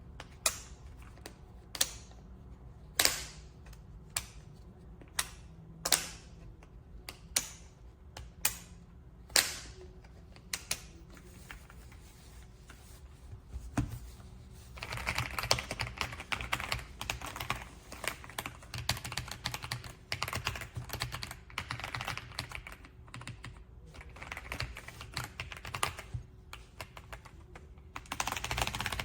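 AULA F75 Pro mechanical keyboard with pre-lubed Reaper switches: single keys pressed one at a time, about one a second, for the first ten seconds or so. Then fast, continuous typing from about halfway through.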